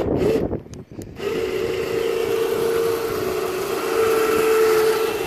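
Electric ATV winch motor on a truck-bed crane running under remote control. A brief burst at the start, then a steady whine from about a second in as it winds its cable.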